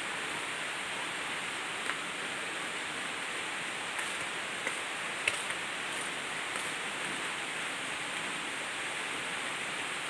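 Steady rain falling, an even rushing noise, with a few faint ticks around the middle.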